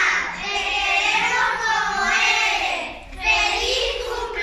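A group of young children singing together in unison, with a brief break about three seconds in.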